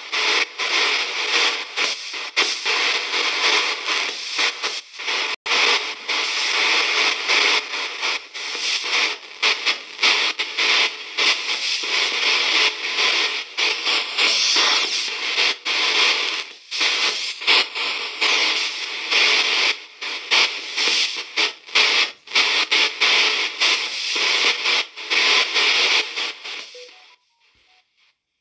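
VBE KC-GhostBox app sweeping its audio banks: a continuous stream of radio-like static and chopped sound fragments, broken by frequent brief dropouts. Near the end it cuts out to near silence.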